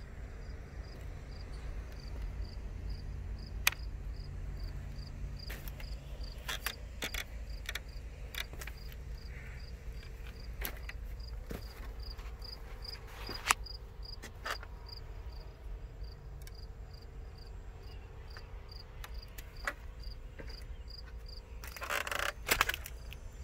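A high-pitched chirp repeating evenly about twice a second, like an insect, over a steady low rumble with scattered clicks and taps. The chirping stops near the end, where a louder rustling, crunching noise comes in.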